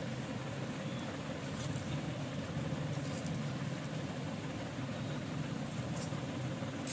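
Steady low background hiss, with a few faint light clicks of a steel spoon touching a steel plate as tempering is spread over soft dhokla, and a sharper click at the end.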